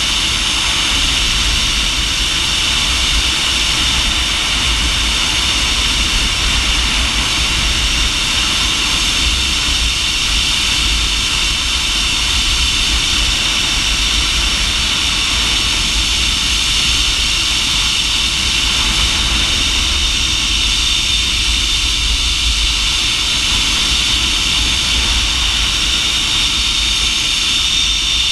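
Zipline trolley pulleys running along the steel cable at speed, a steady high whine and rush, with wind buffeting the microphone.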